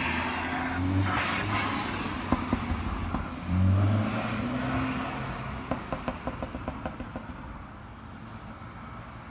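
BMW N20 turbocharged four-cylinder revved twice in short blips, each lift-off followed by burbles and pops on the overrun and turbo flutter, ending in a quick run of crackles that fades as it drops back to idle.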